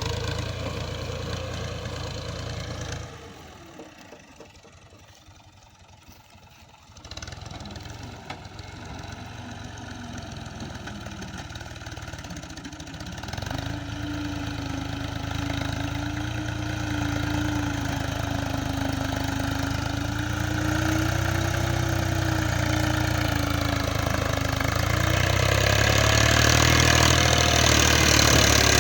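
Diesel engines of heavy earth-moving machinery running. The engine sound drops away for a few seconds about three seconds in, then builds back up and grows louder towards the end, with a wavering whine over the engine note from about halfway.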